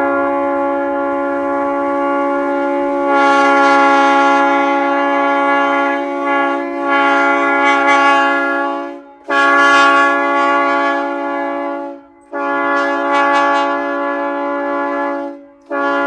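Train horn sounding a chord of several steady tones. One long blast swells louder about three seconds in and stops about nine seconds in. Two shorter blasts follow with brief gaps, and another begins near the end.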